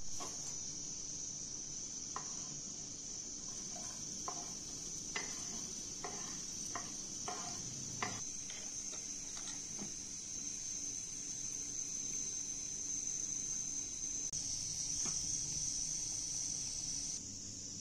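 A steady high hiss runs throughout. About two to ten seconds in, a series of light knife taps and clicks on a wooden cutting board sounds as chopped onion is scraped into a frying pan.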